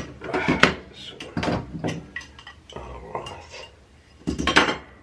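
Sharp metallic clicks and clattering as a handheld VHF radio is cut apart and its metal parts knock together, with a loud clatter right at the start and another about four and a half seconds in.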